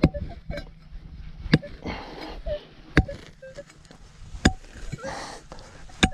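Shovel blade stabbing into dry, clumpy soil and scraping it aside, with a sharp strike about every second and a half, while a metal-detector target is dug out.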